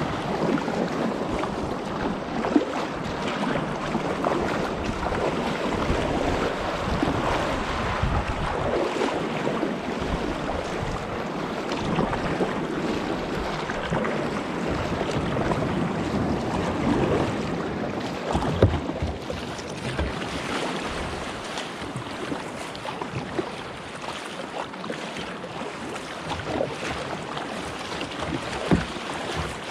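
Sea water sloshing and splashing around a kayak, with wind buffeting the microphone; the noise swells and fades unevenly, broken by a few sharp knocks.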